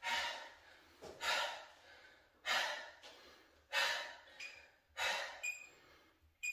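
A man breathing hard and heavily just after an intense workout: about five loud breaths, roughly one every second and a quarter.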